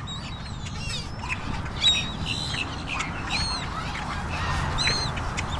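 A flock of park birds calling while being fed: scattered short, high calls, several of them a second or so apart, over a steady low rumble.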